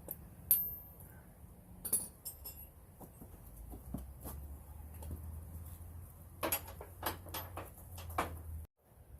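Scattered metallic clinks and knocks of tools and suspension hardware being handled, with a cluster of them between about six and eight seconds in.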